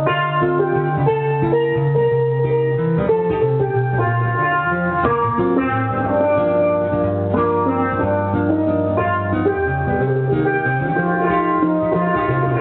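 Steelpan played live: a melody of quick, ringing pitched notes over a sustained low accompaniment.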